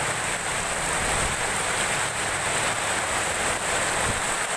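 Heavy tropical downpour: a steady hiss of rain pouring down.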